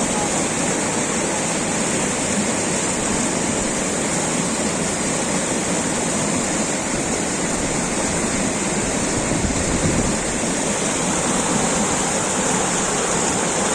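Water of a jhari, a natural stream, flowing in a steady, even rush.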